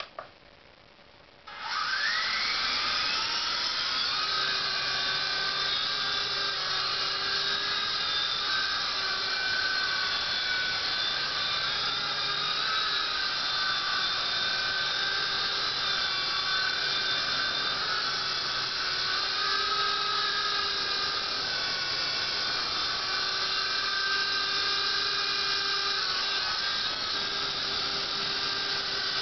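Small electric RC helicopter (Venom Ozone Elite) starting up about a second and a half in: its motors spin up with a rising whine, then hold a steady high whine with a rotor hum, the pitch wavering slightly as it flies.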